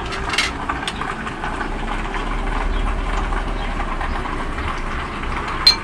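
Steady rumble of outdoor traffic, with a deep low rumble swelling and fading in the middle as a heavy vehicle passes. A few light clicks of a metal spatula on a griddle and plates sound over it.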